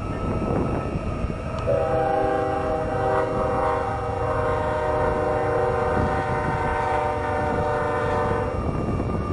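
A train horn blows one long blast of several tones sounded together, starting about two seconds in and lasting about seven seconds, over a steady low rumble of the train.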